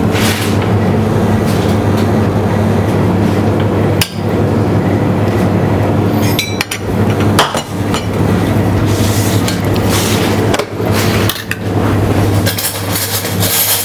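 A metal spoon scraping and clinking against a stainless steel mixing bowl as risotto is spooned out onto a plate, with a few sharp knocks, over a steady low hum.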